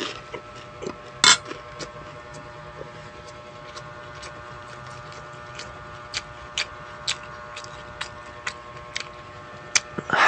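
Close-miked eating sounds: sharp clicks, one loud about a second in, then scattered soft ones, over a steady faint hum. Just before the end comes a crunchy bite into a crisp lettuce leaf.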